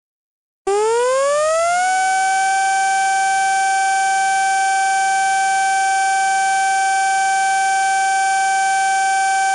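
Warning siren starting about a second in, rising in pitch for about a second, then holding one steady tone.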